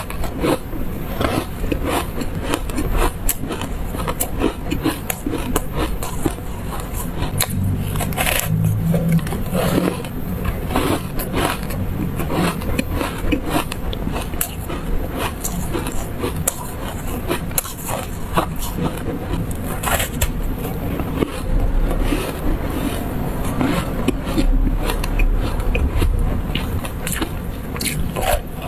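Close-miked chewing of refrozen ice coated in buckwheat powder: dense crunching and crackling, with a fresh bite taken near the end.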